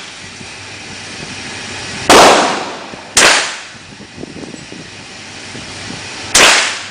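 Three gunshots, the second about a second after the first and the third some three seconds later, each followed by a short echo dying away.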